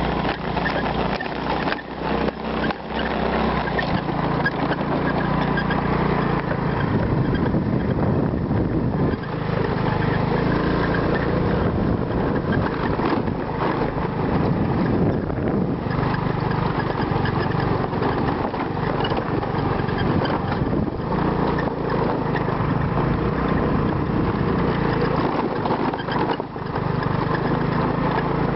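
A motor running steadily, with a low hum and a fast, even pulse.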